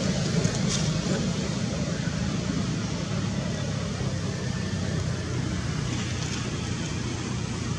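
Steady low background rumble with no distinct event, with a couple of faint ticks early on.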